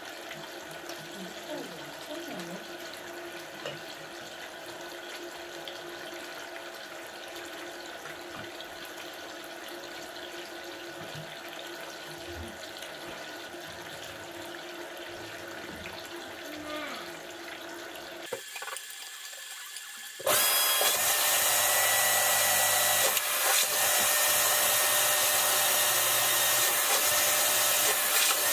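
A low steady hum with faint water trickling, then a short pause and, about twenty seconds in, a loud steady rushing as an electric suction unit starts, its black ribbed hose held at the floor drain.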